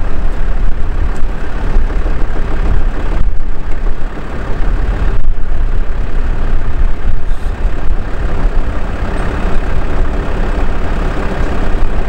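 Recovery truck's engine running steadily, a loud low rumble.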